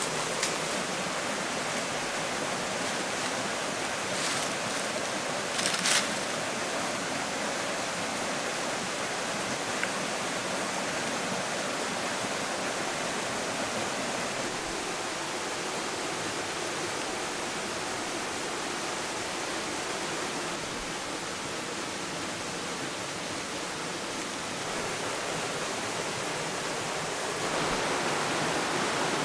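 Steady rushing of river water. A couple of short sharp sounds come through it about four and six seconds in, and the rush grows a little louder near the end.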